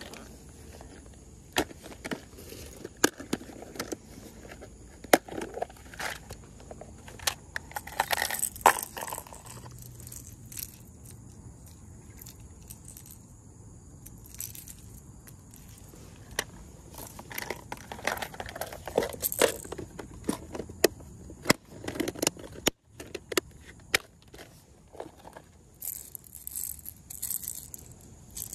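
A plastic tackle box and fishing lures being handled: scattered sharp clicks, rattles and clatters of plastic and metal come in clusters, with rustling in between.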